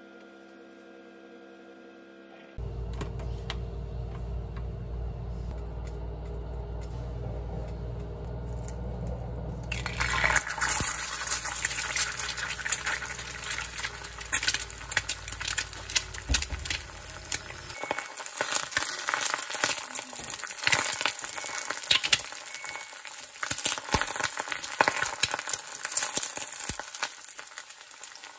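An egg frying in a preheated IKEA Sensuell stainless steel pan: a crackling, spitting sizzle that starts suddenly about ten seconds in and keeps going. A low steady rumble runs underneath and stops a little past halfway.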